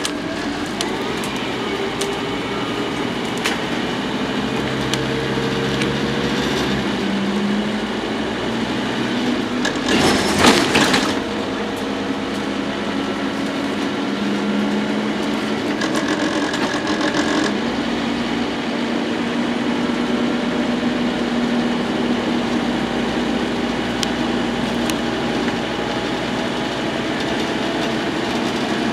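Scania N230UD double-decker bus heard from inside the passenger saloon, its engine and transmission note rising in steps as the bus accelerates through the gears, then holding steady at speed. A brief loud hiss comes about ten seconds in.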